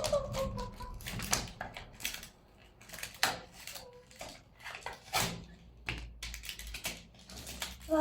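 Irregular clicks and taps of plastic toy packaging and toys being handled and opened.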